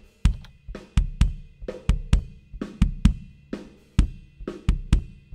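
Recorded drum groove heard through the inside kick-drum mic of a 22-inch Tama kick drum: punchy kick hits several times a second, with snare and hi-hat bleeding in. A narrow EQ boost around 300 Hz is brought up partway through, exaggerating the kick's low-mid honkiness so that it can be found and cut.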